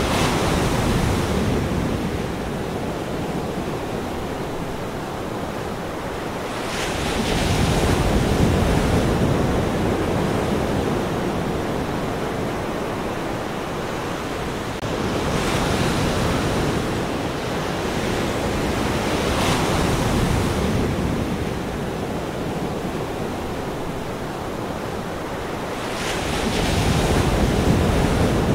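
Ocean waves breaking and washing in, a rushing surf that swells and fades with each wave, five surges several seconds apart.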